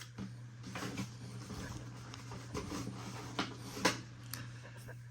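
Cardboard blaster boxes and foil trading-card packs being handled on a table: light rustles and a few short knocks and taps, over a steady low electrical hum.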